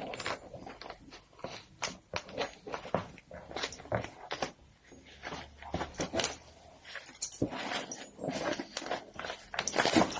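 Irregular clicks, taps and rustling of objects being handled, with no motor running.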